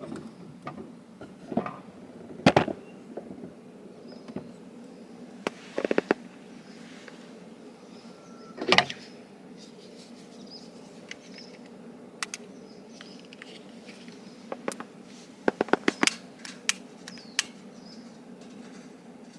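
Wood campfire crackling: irregular sharp pops and cracks, some single and loud, some in quick runs of several, over a steady low background.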